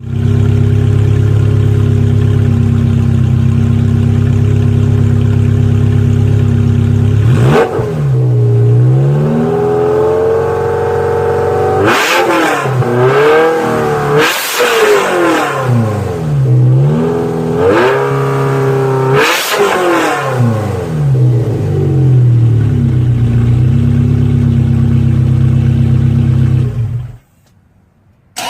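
Chevrolet 348 V8 running through catalytic converters and an X-pipe with no mufflers: it idles steadily, is revved about half a dozen times in rises and falls of pitch, then settles back to idle. The sound drops out suddenly near the end.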